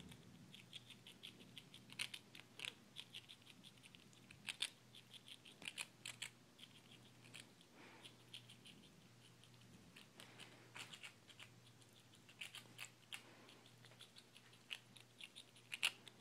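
Gray squirrel nibbling a ginger snap cookie: faint, rapid crunching clicks in short runs, with a few sharper clicks.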